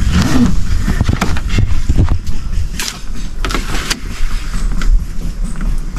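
Rope being fed through a kayak, handled with a few scrapes and knocks near the middle, over a steady low rumble.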